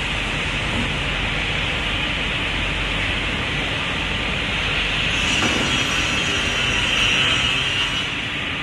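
Sliding panel table saw with a 350 mm main blade running steadily, with a low hum underneath. From about five to eight seconds in it grows louder with a high whine, as when the blade is cutting through a panel.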